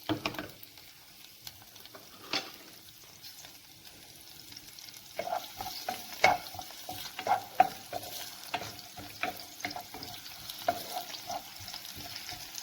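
Chopped onion frying in olive oil in a pot, with a steady soft sizzle. A utensil stirs it, knocking and scraping against the pot in frequent sharp clicks from about five seconds in.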